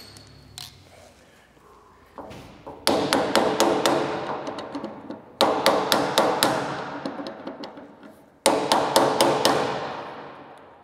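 Pliers used as a hammer, rapping on the welder's metal crank handle to knock it loose from its shaft. There are three bursts of quick metallic taps, each ringing on and fading away.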